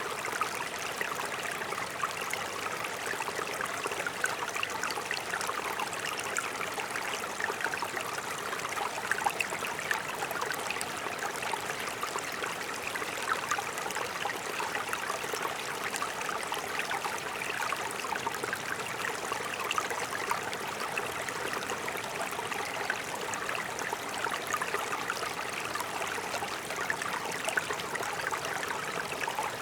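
Mountain stream running over rocks: a steady rush of water with fine splashing and gurgling.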